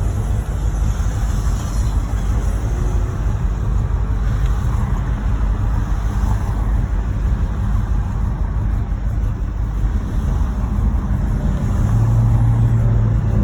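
1986 Monte Carlo SS's V8 engine and road noise heard inside the car while driving, the engine suffering a rod knock in its bottom end. The engine note grows louder near the end.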